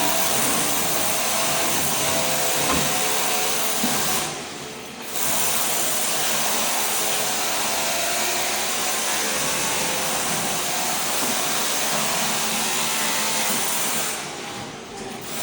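Ride-on floor scraper running and scraping thin-set tile mortar off a concrete slab: a loud, steady mechanical noise that dips briefly about four seconds in and again near the end.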